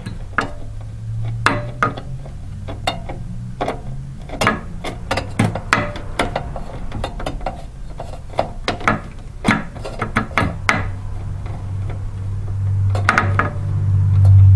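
Screwdriver driving a screw into a CPU cooler mount, with irregular small metallic clicks and scrapes as the screw is turned down. A low hum swells near the end.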